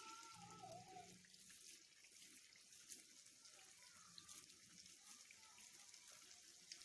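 Faint, steady sizzling with small crackles as a flattened patty of mashed banana dough fries in hot sunflower oil in a pan.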